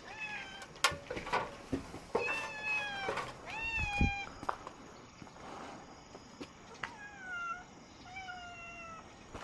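A cat meowing, five meows that mostly drop in pitch at the end. A few sharp clicks come in the first couple of seconds, and a low thump about four seconds in.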